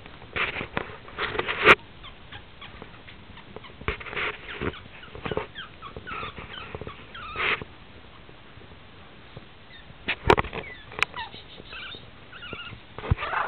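Three-week-old puppies giving small, high squeaks and whimpers, short and scattered, while they crawl on a blanket. There is soft rustling and a few sharp knocks.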